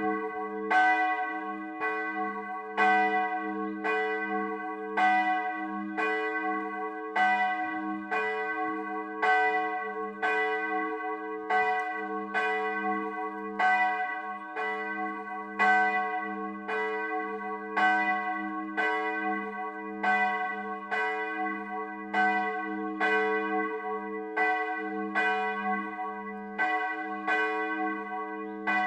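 Single church bell swinging and tolling, struck about once a second with every other stroke louder. Its low hum rings on unbroken between strokes.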